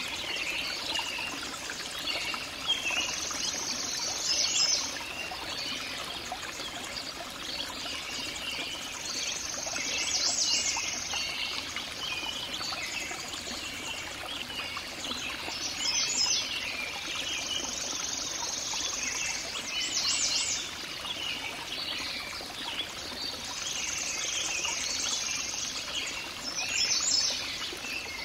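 Nature soundscape of water trickling, as from a small stream or spring, with birds chirping over it. The bird song swells every few seconds.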